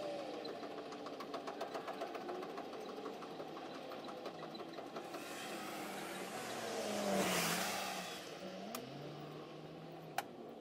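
A passing vehicle, its sound swelling to a peak about seven seconds in and falling away with a dropping pitch. Faint rapid ticking comes before it, and two sharp clicks near the end.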